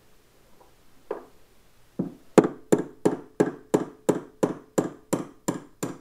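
Hammer striking a long steel punch to drive the old upper steering-head bearing race out of a Yamaha R1's steering head. One light tap about a second in, then a steady run of sharp metallic blows, about three a second, each ringing briefly.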